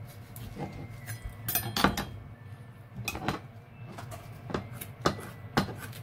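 A kitchen knife and then kitchen shears clicking and knocking against a plastic cutting board while a soft-shell turtle is cut up. In the later part the shears snip through the soft rim of the shell. The sharp clicks come at uneven intervals, with the loudest clatter nearly two seconds in.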